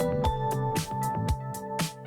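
Upbeat background music with a steady drum beat and held instrumental notes.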